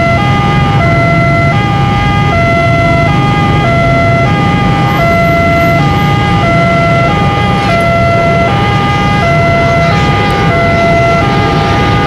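Railway level-crossing warning siren sounding a steady two-tone hi-lo alternation, each tone held for less than a second, over a steady low rumble.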